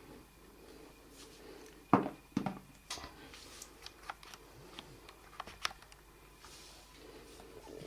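Handling noise from a smartphone being held and worked while it is switched on: a scatter of small clicks and taps, with two louder knocks about two seconds in.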